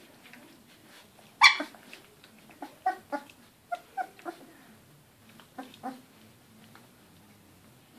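Goldador puppies, about 18 days old, squealing and whimpering: one loud high squeal about a second and a half in, then short squeaks in small clusters until about six seconds in.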